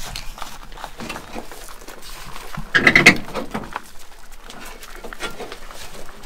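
Rustling, clicks and light knocks of interior parts being handled inside a Corvair's cabin, with one short, loud squeal-like scrape about three seconds in.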